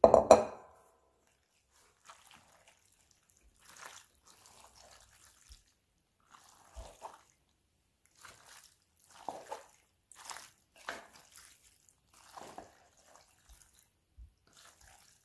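A wooden spoon stirring sauce-coated ziti pasta and shredded cheese in a pot, making soft, wet squelching strokes about once a second. A brief louder sound comes right at the start.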